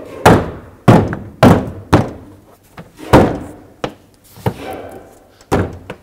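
Gloved hands striking the plastic interior trim panel of a 2008 Chevy Equinox liftgate, snapping its push clips back into place: about seven sharp thunks at uneven intervals.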